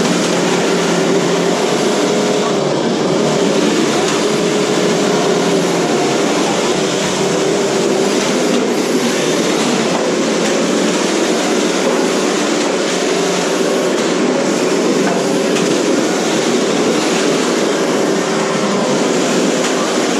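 Motors and drivetrains of several 1/10-scale radio-controlled cars running together in a steady whine that wavers in pitch as they speed up and slow down.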